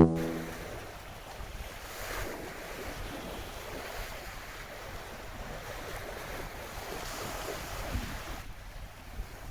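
Sea surf washing against rocks, a steady rushing noise that swells a couple of times, with wind buffeting the microphone.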